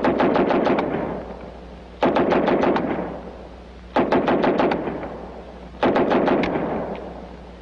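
Four short bursts of automatic fire from WWII submachine guns, about two seconds apart, each a rapid string of roughly six to eight shots trailing off in echo.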